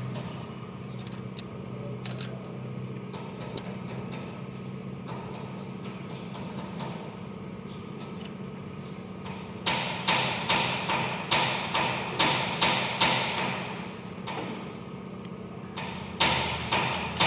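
Hand tools working the valve-clearance adjusters on an open Mitsubishi 4N15 cylinder head, with a steady low hum underneath. From about ten seconds in comes a run of sharp metallic knocks, two to three a second, and the knocks start again near the end.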